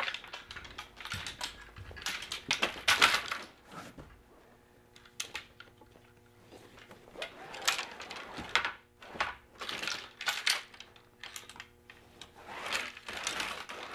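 Folding-kayak frame pieces (gunnels and rods) clicking and clattering against each other as they are handled and slid into a packing sleeve. The taps are irregular, loudest about three seconds in and again in a few clusters later on.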